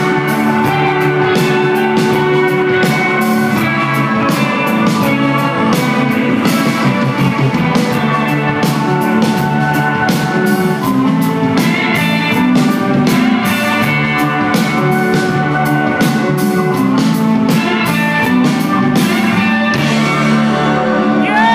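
Rock band playing live: electric guitar, bass, keyboards and a drum kit keeping a steady beat, heard loud from the crowd.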